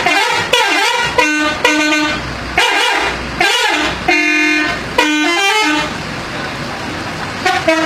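Bus telolet horn, a set of multi-tone air horns, playing a quick melody of short pitched toots. It stops about six seconds in, then starts again near the end.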